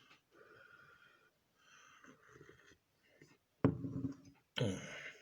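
Faint sipping of a hot caramel latte from a glass, then two short voiced murmurs of a man tasting it, about three and a half seconds in and near the end.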